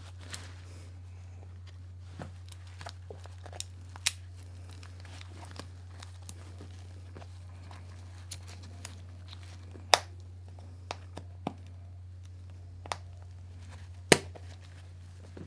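A PGYTECH Beetle camera clip being worked onto a backpack shoulder strap by hand: scattered plastic clicks and rubbing of the strap, with two sharp snaps, one about ten seconds in and one near fourteen seconds.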